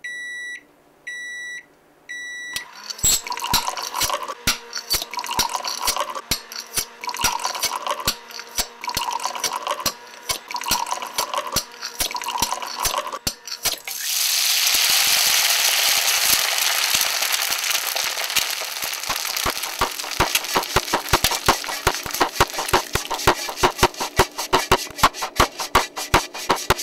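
Kitchen noises: three short electronic appliance beeps, then a regular run of clicks and knocks with a repeating swell. About fourteen seconds in a loud rushing hiss like running water starts, and it gives way to fast, even ticking.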